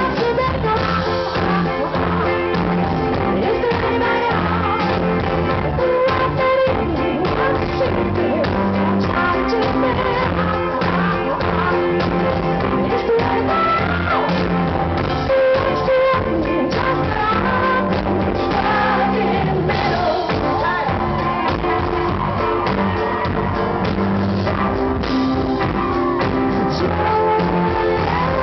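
Live pop-rock band playing with vocals, at a steady loud level.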